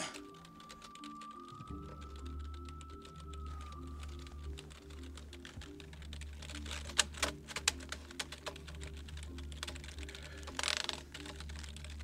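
Computer keyboard typing: runs of quick key clicks, a few louder keystrokes just past the middle. Background music with a bass line comes in about two seconds in.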